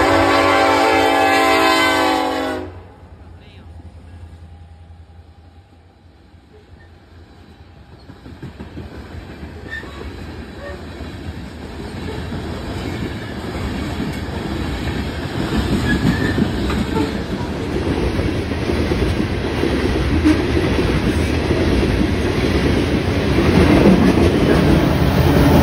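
A diesel freight locomotive's air horn sounding, cut off about two and a half seconds in. Then the rumble of a long freight train, growing steadily louder as it comes closer and passes, with wheels clattering on the rails.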